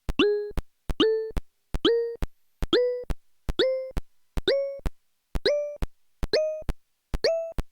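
Motorola Z6m (ROKR) phone's synthesized system sound, from its Qualcomm CMX chip: a short, plopping electronic blip that bends up at the start and ends in a click. It plays about once a second, each blip a step higher in pitch than the one before.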